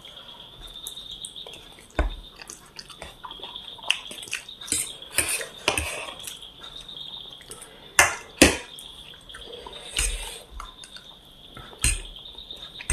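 Someone eating chow mein noodles: a utensil clicks and scrapes against the plate several times, with the wet sounds of eating in between. A faint steady high whine runs underneath.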